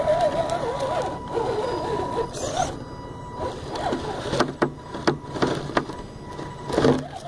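Axial SCX10 RC crawler's electric motor and gear drivetrain whining, the pitch rising and falling with the throttle as it climbs through dirt and grass. Several sharp clicks and scrapes come in the second half as grass and stalks brush against the truck.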